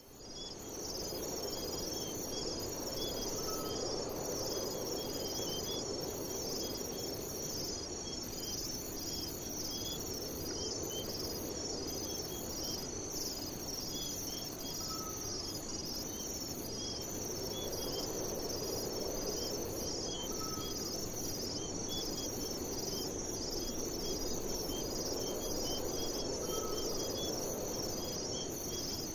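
Insects chirping in a dense, steady chorus of fast high-pitched pulses, over a low rushing noise that swells and fades every few seconds. A faint short rising call sounds four times.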